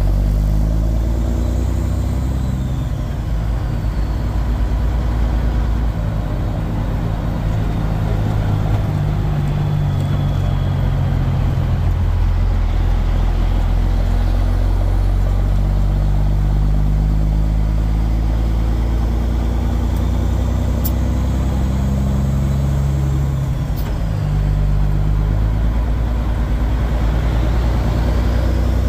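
Semi truck's diesel engine running steadily under way, a low drone whose pitch shifts slowly; the engine note dips briefly about 24 seconds in, then picks up again.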